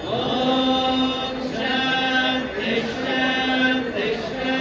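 Male voices chanting Sanskrit Vedic mantras, each phrase held on a steady pitch for a second or so, with short breaks between phrases.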